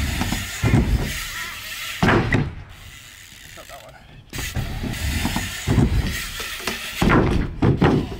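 BMX bike ridden on wooden ramps: tyres rumbling over the plywood deck and the rear hub's freewheel ratcheting as it coasts, with loud knocks and clatter from the bike in several bursts, the last near the end as the rider comes off the bike.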